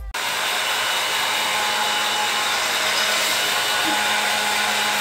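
Handheld electric hair dryer running steadily: a loud, even rush of air over a low motor hum, blowing on a wet cat's fur.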